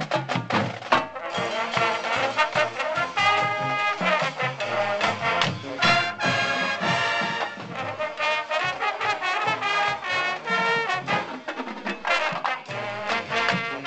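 High school marching band playing: drum line strikes in the first second, then the brass section, sousaphones included, playing held chords and moving lines over the drums.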